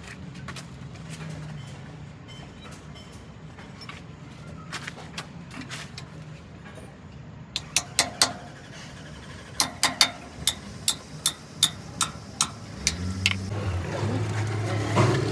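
A low engine hum runs steadily. About halfway in comes a run of roughly a dozen sharp knocks, one to two a second. Near the end an engine drone grows louder.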